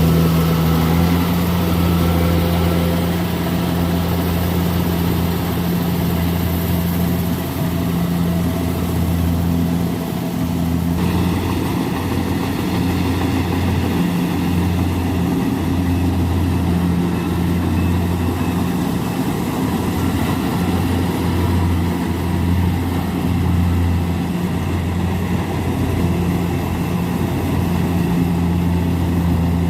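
Kubota rice combine harvester's engine running steadily with a deep, even hum.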